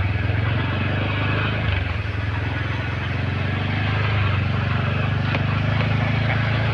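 Motorcycle engine running at a steady speed while riding, heard from the rider's seat, with wind and road noise.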